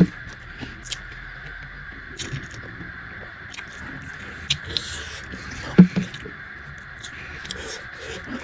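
Close-miked eating sounds: chewing with scattered small clicks and scrapes of utensils and food, and one louder knock a little under six seconds in, over a steady background hiss.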